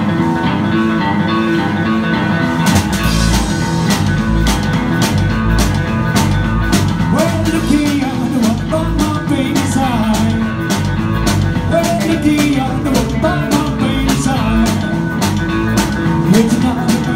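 Live band playing with two electric guitars and a drum kit. The guitar plays alone at first, and the drums come in about three seconds in.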